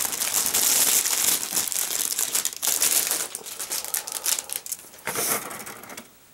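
Thin clear plastic bag crinkling and rustling as plastic model-kit runners are pulled out of it and handled. The crackling dies away about five seconds in.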